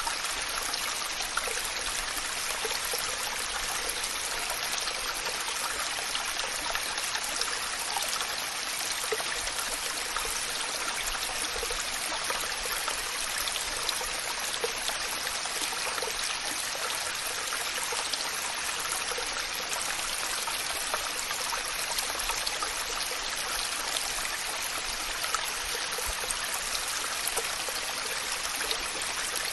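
Waterfall: a steady rush of falling water, even and unbroken, with fine splashing through it.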